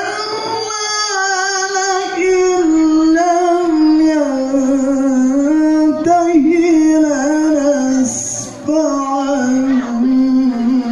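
A qari chanting the Qur'an in the melodic tilawah style. One voice holds long, ornamented notes that drift slowly lower in pitch, starting suddenly at the outset.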